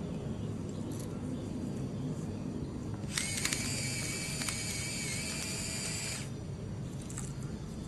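TLYSXPRO electric salt and pepper grinder's small motor running once for about three seconds, starting about three seconds in and cutting off suddenly: a steady mechanical whine as it grinds.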